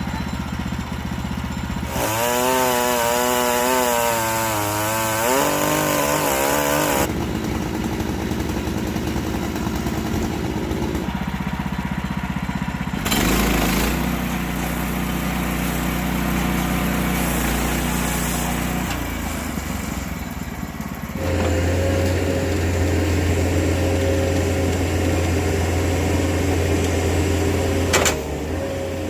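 Sawmill engine running and the saw cutting through a log, the engine pitch wavering under load in places; the sound changes abruptly several times.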